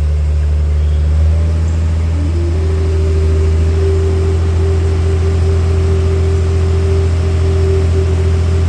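Passenger speedboat's engine running steadily at speed, a loud low drone, with its higher tone stepping up in pitch about two seconds in.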